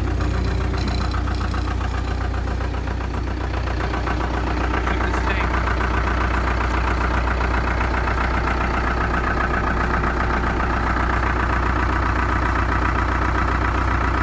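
2001 New Holland LB75B backhoe's diesel engine idling steadily just after a cold start, a little louder from about four and a half seconds in.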